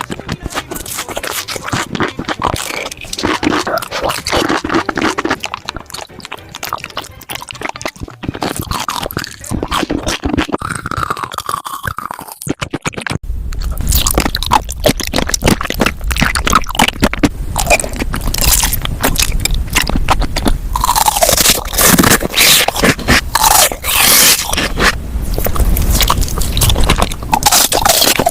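Close-miked crunching and chewing of crisp food, a dense run of sharp crackles and bites; about halfway through a low hum comes in underneath.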